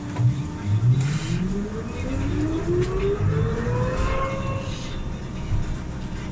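Irisbus Cristalis ETB 18 trolleybus's electric traction drive whining as the bus accelerates, the whine rising steadily in pitch and levelling off about four and a half seconds in.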